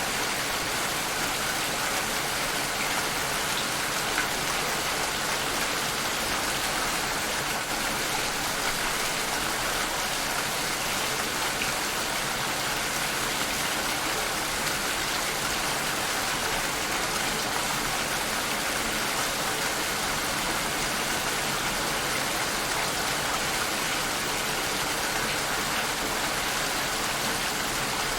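Steady rain falling, an even hiss of many drops that holds the same level throughout.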